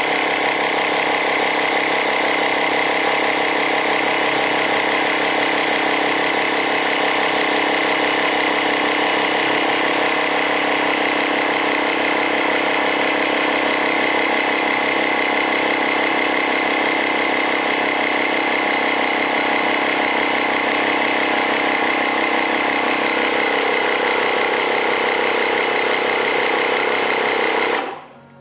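Small electric air compressor from a car puncture repair kit running steadily as it pumps up a tyre, then switched off abruptly near the end.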